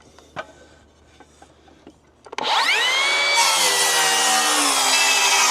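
A few faint clicks, then about two seconds in a power circular saw starts, whining up to speed and running steadily as it cuts through a wooden rafter.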